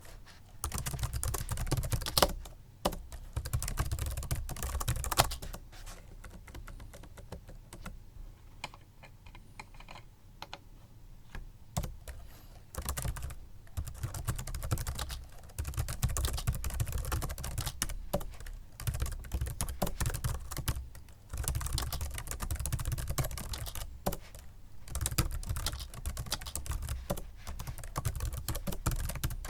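Typing on a Microsoft Sculpt Ergonomic membrane keyboard: dense runs of keystrokes broken by short pauses, with a sparser, quieter stretch from about six to twelve seconds in.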